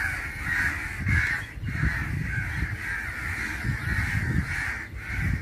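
A group of crows cawing without pause, with many harsh calls overlapping. These are agitated crows mobbing people who have come near a young crow on the ground. A low rumble runs underneath.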